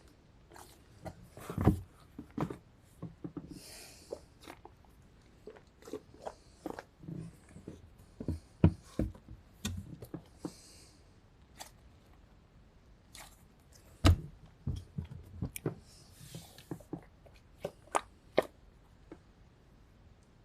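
Fidget toys and stress balls being handled and set into bins: irregular clicks, taps and knocks of plastic, with a few brief rustles.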